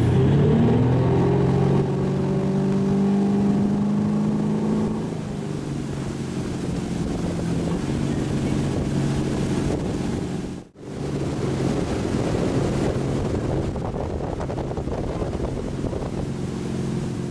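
Water-ski tow boat's engine revving up as it pulls two skiers out of the water for a deep-water start, then running steadily at towing speed with the rush of water and wake. The sound drops out briefly about two-thirds of the way through.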